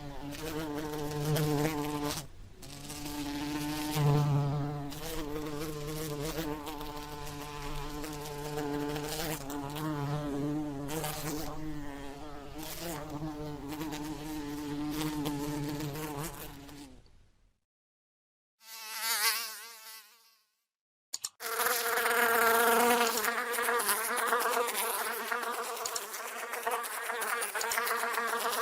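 Housefly buzzing in flight, its drone wavering in pitch as it moves. It fades away about two-thirds of the way through, returns in a short buzz, then comes back steadily near the end.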